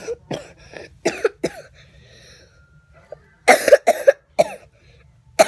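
A girl coughing repeatedly in short, sharp bursts, the loudest run of coughs about three and a half seconds in.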